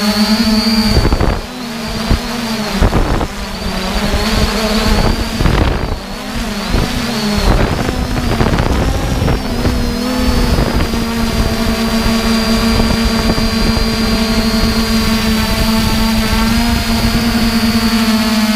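A drone's motors and propellers, heard from its onboard camera, make a steady whine with a high tone above it. For the first several seconds the pitch wavers and gusty wind rushes over the microphone; after that the sound settles to a steady hum.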